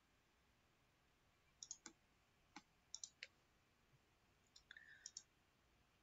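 Faint computer mouse clicks, several of them in quick pairs, over a near-silent background.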